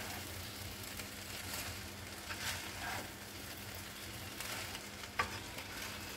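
Fried rice stir-frying in a non-stick pan: a low steady sizzle with repeated scrapes of a wooden spatula turning the rice over. A single sharp tap about five seconds in.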